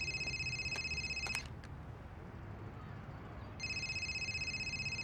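A telephone ringing twice with a rapid electronic trilling ring, each ring lasting about a second and a half with a pause of about two seconds between them.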